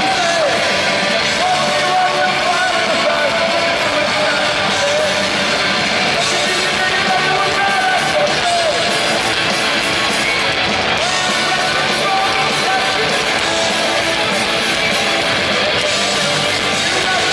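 Punk rock band playing live: electric guitars with a singing voice over them, loud and continuous.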